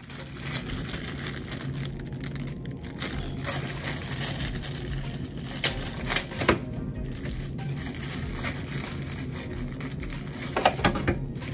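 Clear plastic wrapping rustling and crinkling as hands handle it, with a few sharp crackles about halfway through and again near the end, over a steady low hum.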